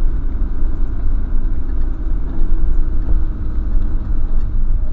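Camper van driving slowly, its engine and road rumble steady and loud as picked up by a dashcam microphone inside the cab.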